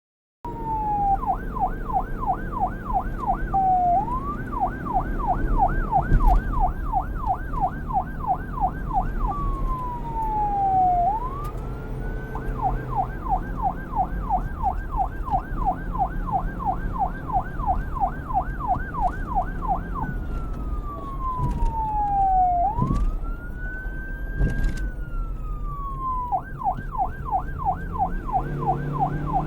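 Police car's electronic siren switching between a fast yelp, about four rising-and-falling sweeps a second, and a slower wail of long falling and rising sweeps, over a low steady rumble. A sharp knock about six seconds in.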